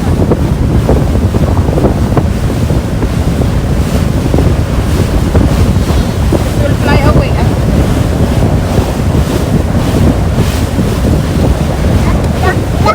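Heavy wind buffeting the microphone aboard a moving boat, over rushing water; a loud, steady, rumbling noise.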